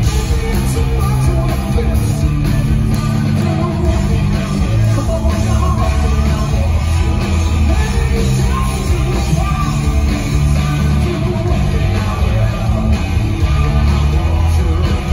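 Live hard rock power trio playing loud: electric guitar, bass guitar and drum kit, heard from among the audience with a heavy, boomy low end.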